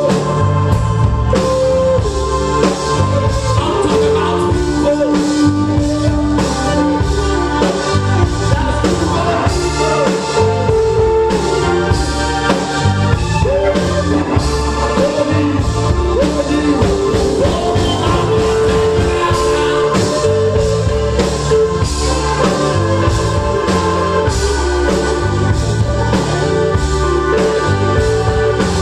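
Live rock band playing: drum kit, electric and acoustic guitars, and an organ holding long chords.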